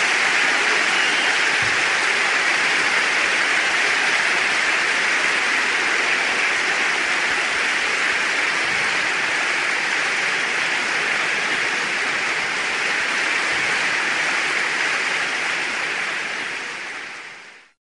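Audience applauding steadily in a large hall, fading away near the end.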